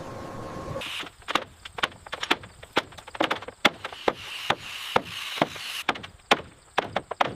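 Sharp, irregular wooden knocks and taps, several a second, over a light hiss; they start about a second in after a steady hiss.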